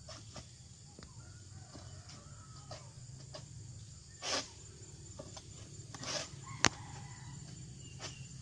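Short rustles and scrapes, with one sharp click about two-thirds of the way through, from a long-pole harvesting sickle working among oil palm fronds. A rooster crows faintly about a second in.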